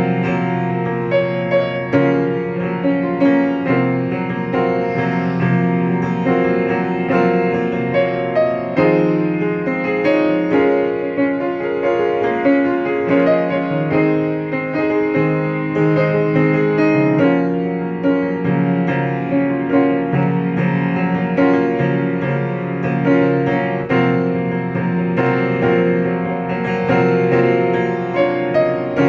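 Instrumental music on a piano-like keyboard, a continuous run of notes over low held notes in the bass.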